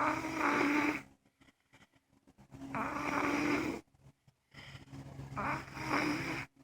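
A man snoring: three loud snores about a second long each, spaced roughly two and a half seconds apart, with quiet breathing between them.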